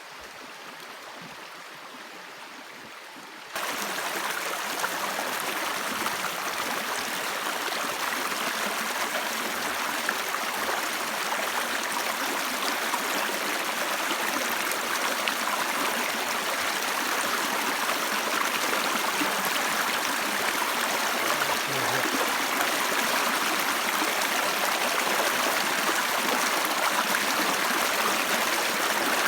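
Stream water rushing steadily. It gets suddenly louder about three and a half seconds in, then slowly builds.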